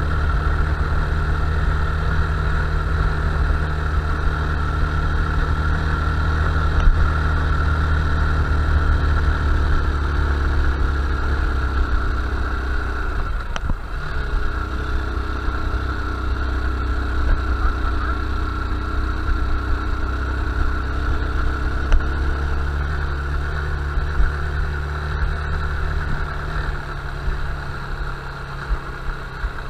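Honda Bros 160 single-cylinder motorcycle engine running steadily. The engine note drops briefly about halfway through, then picks back up.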